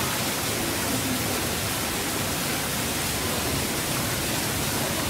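A steady, even hiss across all pitches, with no distinct event in it.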